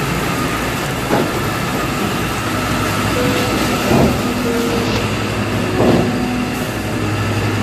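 Steady running of carrot-handling machinery: conveyor belts and their motors humming, with three short knocks.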